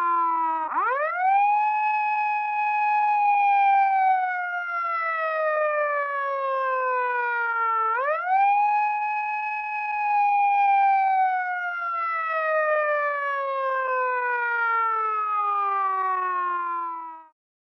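A siren wailing. Its tone is falling as the clip opens, sweeps sharply up about a second in, then slides slowly down for about seven seconds. It sweeps up and slides down the same way a second time, then cuts off suddenly near the end.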